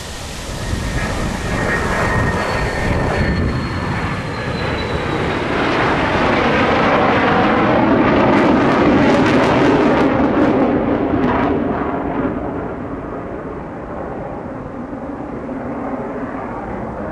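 An F-16 fighter jet on landing approach with gear down passes overhead. Its jet engine's high whine slides slightly down in pitch in the first few seconds, under a steady rush. The rush and low rumble build to their loudest about halfway through, then fade as the high end drops away.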